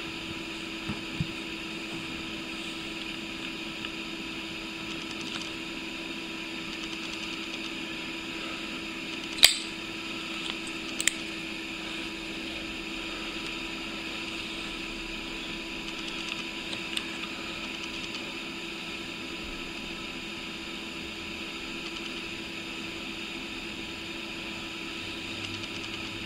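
Steady background hum with a few fixed tones, broken by two sharp clicks a second and a half apart about ten seconds in.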